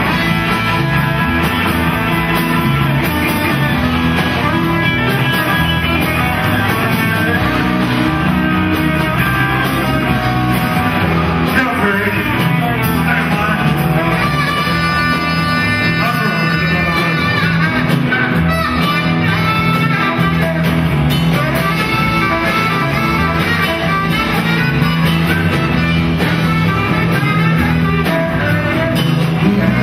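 Live rock and roll band playing, with electric guitar to the fore over bass and drums.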